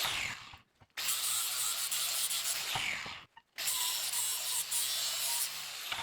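Metalworking power tool on steel: a steady harsh hiss with a falling whine as each take begins, cut off by two brief silences.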